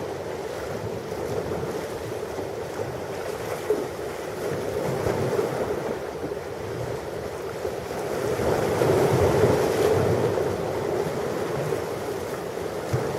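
Ocean waves washing on a shore, a steady rush of surf that swells louder as a wave breaks about two-thirds of the way through.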